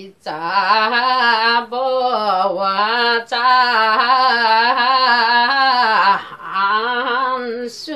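A woman singing a Limbu palam solo and unaccompanied, in long held phrases with a wavering, ornamented pitch. The line breaks off briefly for breath about two, three and six seconds in.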